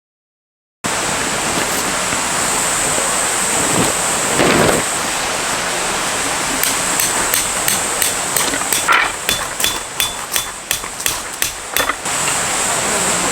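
Mountain stream rushing steadily. About halfway through, a quick run of sharp knocks comes in at roughly three a second and stops a little before the end.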